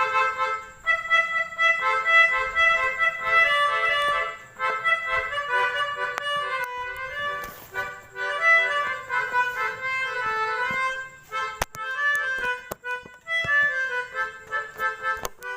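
Basuri telolet multi-tone horn playing a fast melody of short, stepping notes with a reedy, accordion-like tone. A few sharp clicks come in the last few seconds.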